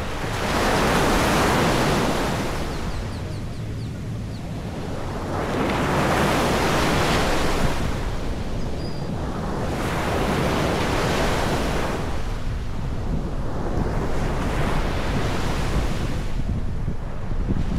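Sea waves washing onto a beach, the surf swelling and fading every four to five seconds, with wind buffeting the microphone.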